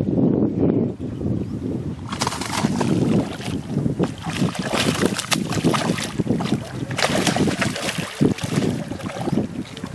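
A hooked barramundi thrashing at the pond surface, splashing over and over from about two seconds in, with wind rumbling on the microphone.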